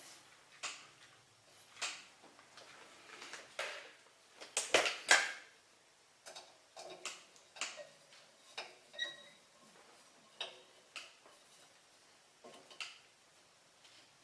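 Allen wrench working the set screw on a slab saw's drive pulley, tightening it down onto the arbor and key: irregular small metallic clicks and taps, with two louder knocks about five seconds in.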